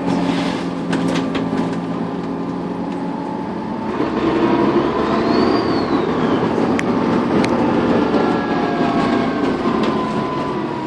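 Dennis Trident 2 double-decker bus engine running under way, getting louder about four seconds in as it pulls harder. About five seconds in, a high whistle rises and falls, which is the turbocharger whistle. A couple of sharp rattles or clicks come near the middle.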